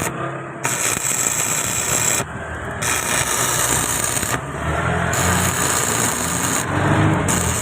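Arc welding a patch plate onto a rusted vehicle chassis: a crackling hiss in stretches of a couple of seconds, broken by short pauses as the arc is struck again, over a low engine-like hum.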